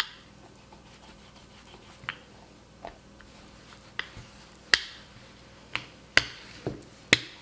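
Silicone rolling pin with metal handles being pushed back and forth over pasta dough on a bamboo cutting board: about nine sharp, irregular clicks and knocks of the pin and its handles against the board.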